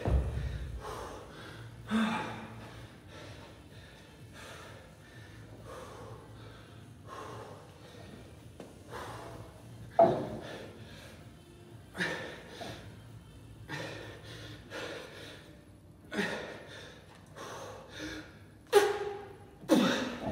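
A man's heavy, effortful breathing during a kettlebell set: sharp gasps and hard exhales every second or two, a few of them pushed out as short grunts. A low thump comes at the very start.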